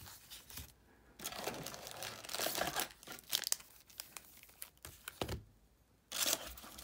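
Foil wrappers of Magic: The Gathering Core 2021 booster packs crinkling as the packs are handled and laid out in a row, in irregular stretches with two short pauses and a light thump about five seconds in.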